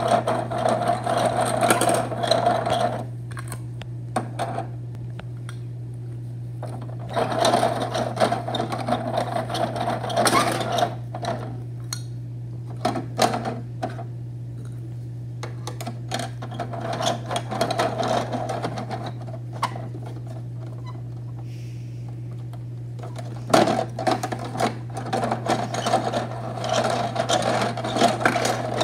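Plastic gears and levers of a Bruder toy garbage truck's hand-worked rear-loader mechanism, rattling and clicking rapidly in several bursts of a few seconds each, with a sharp knock about three-quarters of the way through. A steady low hum sits underneath.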